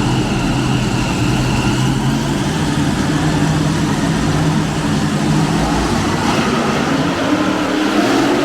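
Pulling tractor's engine running hard under load in an indoor arena, a loud, steady engine note that holds through the whole stretch.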